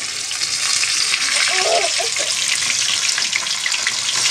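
Rohu fish steaks shallow-frying in hot oil in a kadai: a steady sizzle full of small crackling pops, building up over the first second and then holding.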